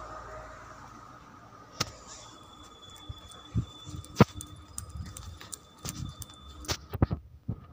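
Irregular knocks and clicks, a dozen or so sharp ones with the loudest about four seconds in, and a few soft thuds, over a faint steady hum: handling and movement noise as a handheld phone is carried about.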